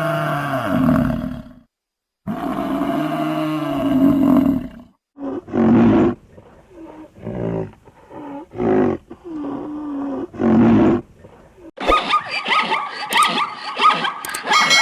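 Large animal calling: two long, low bellows, then a run of shorter calls. A different, busier sound with rapid clicks starts near the end.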